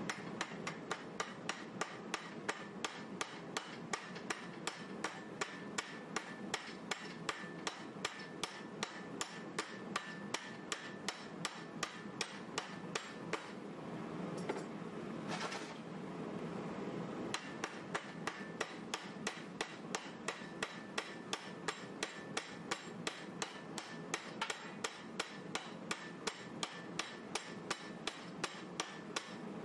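Hammer blows on a hot 1095 carbon-steel knife blade clamped in a steel bench vise, an even run of about two to three strikes a second. The hammering stops for about three seconds in the middle, then carries on in the same rhythm.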